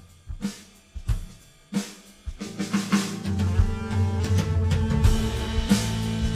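Instrumental music: sparse drum-kit hits at first. About two and a half seconds in, bass and sustained instruments come in under the beat and the music grows fuller and louder.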